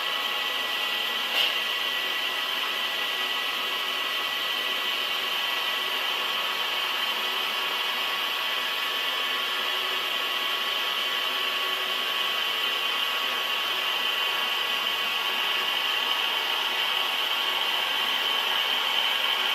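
Heavy industrial lathe running steadily, a constant machine noise with a few high whining tones over it, and a single sharp click about one and a half seconds in.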